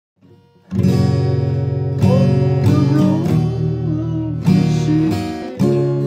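Acoustic guitar music: strummed chords begin about a second in and ring on, with a fresh strum every second or so.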